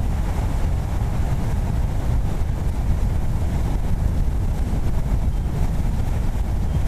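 Hurricane-force wind buffeting the microphone: a steady, loud low rumble with a rushing hiss above it.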